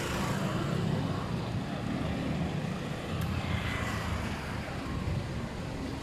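Street traffic: a steady low rumble of motor vehicles running on a city street.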